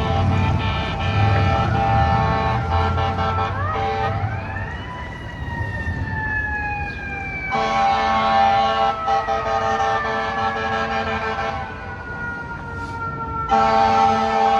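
Fire truck air horns sounding in long blasts, three in all: one ends a few seconds in, one comes near the middle and one starts near the end. Between them a siren rises quickly and then slowly winds down in pitch.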